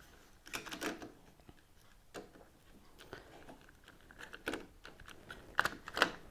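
Handling noises as parts and tools are worked by hand: scattered light clicks and knocks, with two sharper knocks about five and a half and six seconds in.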